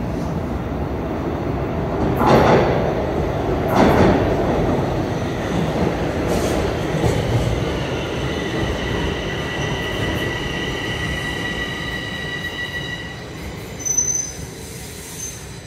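Toronto Rocket subway train pulling into the station: a rumble of wheels on rail with two loud clacks about two and four seconds in, then a steady high-pitched squeal of several tones from about the middle as it brakes. The rumble dies away as it comes to a stop, with a short sharp sound near the end.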